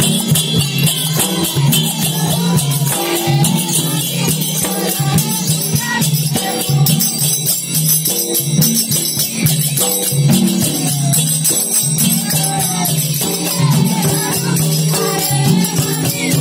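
Folk dance music: hand-beaten barrel drums keep a steady rhythm, with jingling metal percussion and a melody line over them.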